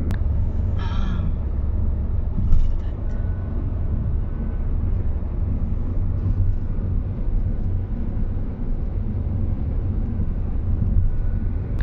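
Steady low rumble of a car's engine and tyres on the road, heard from inside the cabin while cruising. There is a sharp click right at the start and a brief bump about two and a half seconds in.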